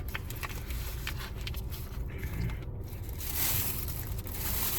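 Someone chewing a mouthful of chicken burger close to the microphone: irregular small crunches and clicks over a steady low rumble.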